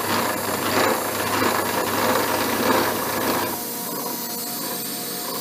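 Abene horizontal mill taking a slot cut with a side-and-face cutter in a metal bar: a rough, rasping cutting noise over the machine's running whine, from a cutter the machinist doubts is sharp. About three and a half seconds in the cutting noise drops away, leaving the steady whine of the running mill.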